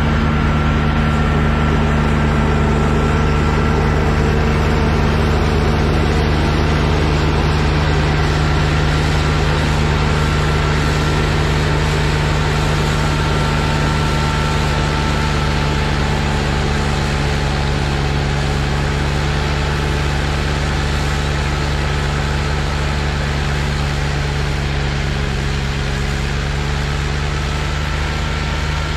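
Trackless MT6 tractor's diesel engine running steadily while its front snowblower throws snow: a constant low engine drone under a rushing hiss. It grows a little fainter in the second half.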